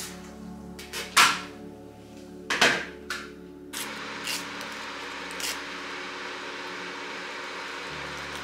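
Two sharp knocks of kitchen things being handled, about one second and two and a half seconds in. After them come a few faint crinkles of a small paper tea sachet being torn open. Soft background music plays under it all.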